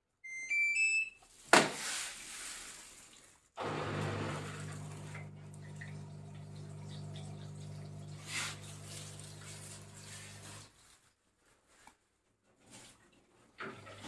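Manfield MFWD-1410-6S04 washer-dryer: the control panel plays a short rising run of beeps, a click follows, then a steady pump hum with water flowing from about four seconds in until it stops near eleven seconds, as the machine drains at the start of a spin.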